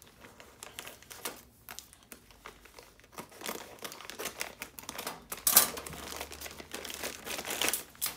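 A clear plastic packaging bag crinkling in short, crackly bursts as it is cut open with scissors and a wiring harness is pulled out of it. The crinkling is louder in the second half, loudest about halfway through and again near the end.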